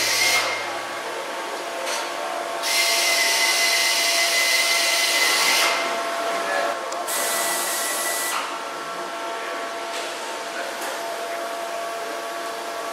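Pneumatic tools in a metal workshop: bursts of compressed-air hiss with a thin whine, one lasting about three seconds and a shorter one a few seconds later, over a steady workshop hum.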